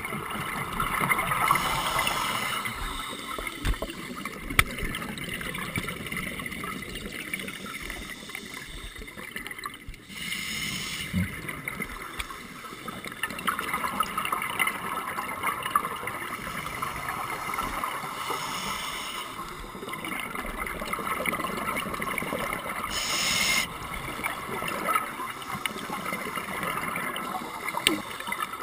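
Underwater sound heard through a dive camera's housing: a scuba diver's regulator breathing, with hissing inhalations several seconds apart and gurgling bubbles between them.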